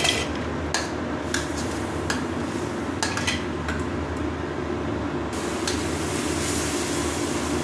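Metal spatula stirring a watery chili-spice sauce in a metal wok, scraping with a few sharp clinks against the pan over a steady hiss.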